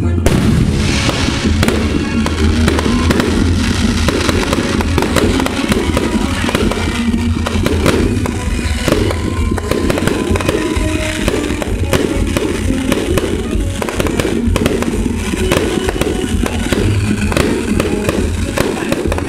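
Fireworks going off in rapid succession: many sharp bangs and crackling pops from shells and a ground-launched barrage firing stars and comets.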